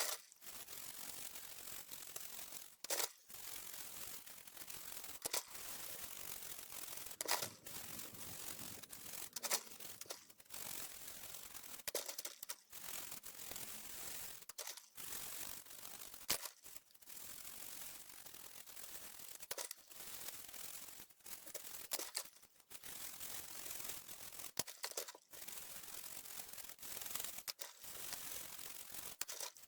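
Hands working on the plastic parts of an HP SK-2502C keyboard: scattered sharp clicks and knocks over a steady hiss, with frequent brief breaks in the sound.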